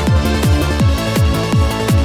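Electronic dance music with a steady, fast kick-drum beat, about three beats a second.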